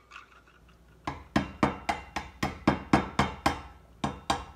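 A screwdriver banging on a dime laid over a wine bottle's cork, driving the cork down into the neck: a quick run of sharp knocks, about four a second, starting about a second in, with a short pause near the end.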